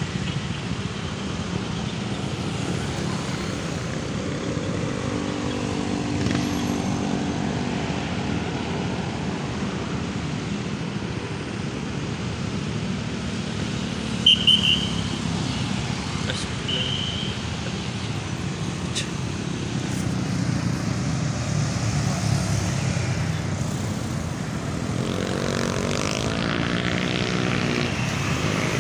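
Steady engine and road noise from passing motor traffic. An engine's pitch rises and falls near the end, and there are two short high beeps about halfway through.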